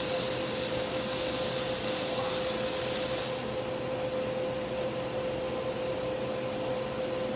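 Welding arc crackling and hissing over a steady hum, then cutting off suddenly about three and a half seconds in as the arc is broken, leaving the hum running.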